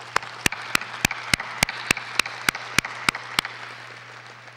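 Audience applauding in a large hall, with one pair of hands clapping close by in sharp, evenly spaced claps about three and a half times a second that stop about three and a half seconds in; the applause then dies away.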